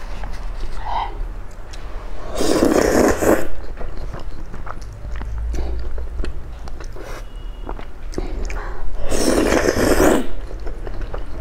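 Close-up mouth sounds of eating spicy fire-chicken instant noodles: two long, loud slurps of noodles, one a little over two seconds in and one near the end, with wet chewing and smacking clicks between them.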